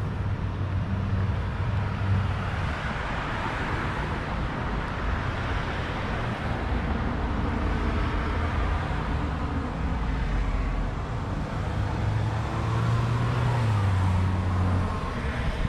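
Road traffic: cars driving by, with engine hum and tyre noise that swell and fade as vehicles pass.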